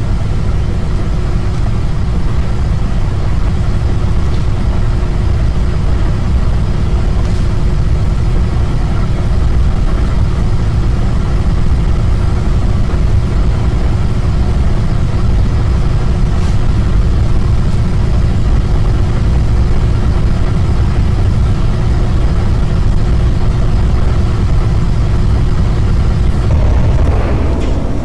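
A loud, steady low rumble with a constant hum tone over it, unchanging throughout.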